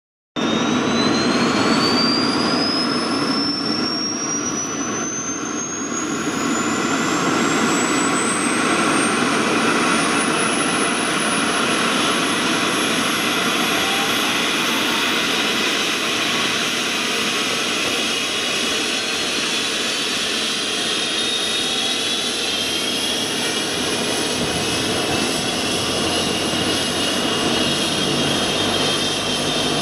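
AgustaWestland A109 helicopter's turbine engines starting up. A high whine climbs steadily in pitch over about the first ten seconds as the engines spool up, then holds steady over a constant running noise.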